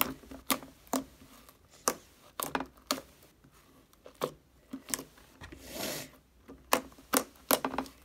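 Homemade glue slime being kneaded and pressed by hand, giving off irregular sharp clicks and pops, about two a second, with one longer, softer squish a little before six seconds in.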